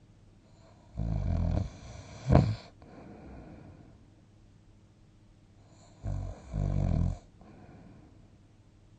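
A sleeping person snoring: a low snore about a second in, followed by a short, sharp, louder snort just after it. A second snore in two parts comes about six seconds in, with quiet breathing between.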